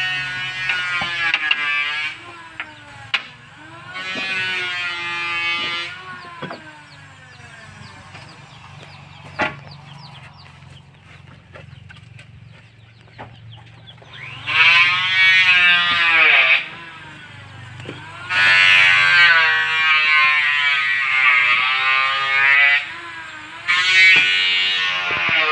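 Homemade table circular saw ripping jackfruit wood: the blade's pitch wavers and dips under load during each of five cuts, and the motor hums between them. A few sharp knocks fall in the gaps.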